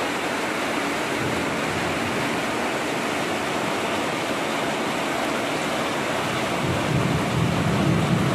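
Heavy tropical rain pouring steadily. Near the end a low rumble swells up under the rain.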